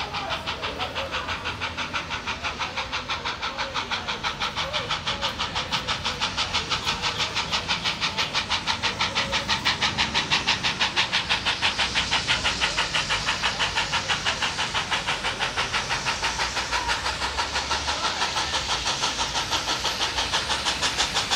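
Steam locomotive 5917 working hard on the approach, its exhaust beating rapidly and evenly at about five beats a second and growing slowly louder as it draws nearer.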